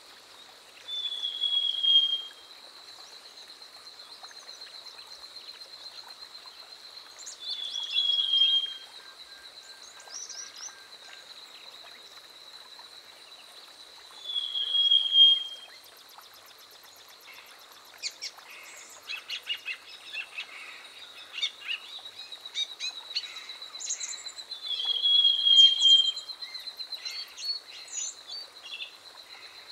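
Black-headed sibia singing: four loud whistled phrases, each about a second long and falling slightly in pitch, spaced several seconds apart. A steady high-pitched buzz and scattered short chirps run beneath.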